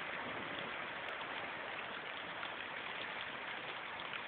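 Steady hiss of rain on flood water, even throughout with no distinct splashes or engine note standing out.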